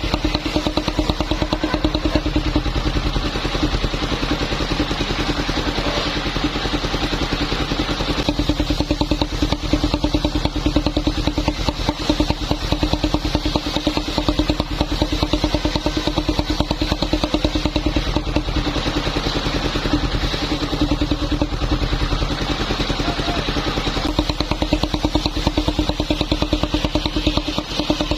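Engine of a motorised wood saw running steadily at one constant speed, with no change in pitch.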